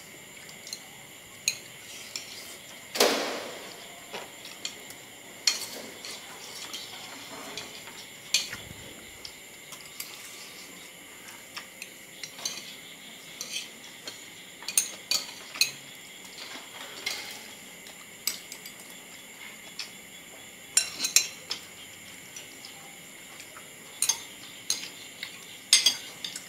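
Metal spoons and chopsticks clinking and scraping against ceramic plates and bowls during a meal: scattered sharp clinks, the loudest about three seconds in with a short ring.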